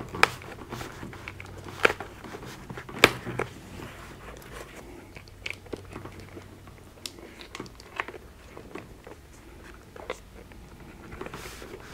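Handling noise from intercom wiring being pushed through a small cut in a half helmet's fabric liner: scattered sharp clicks and light rustling, the loudest clicks in the first few seconds.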